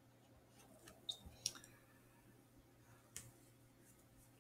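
A few faint, short strokes of a pen writing on paper in the first second and a half, and one more about three seconds in; otherwise near silence.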